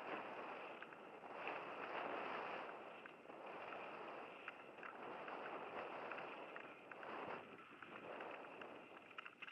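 Mountain bike descending a dirt forest trail at speed: wind rushing over the camera microphone and tyres rolling on the dirt surface, swelling and easing in waves, with short clicks and rattles from the bike over bumps.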